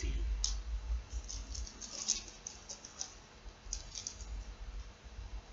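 Rune pieces clicking lightly against each other as they are shaken and handled before the next rune is drawn: many quick, light clicks in loose clusters, with a low handling rumble.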